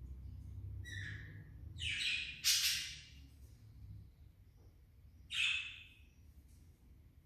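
Pet budgerigar giving short, harsh squawking calls: a brief one about a second in, a louder pair between two and three seconds in, and another about five seconds in.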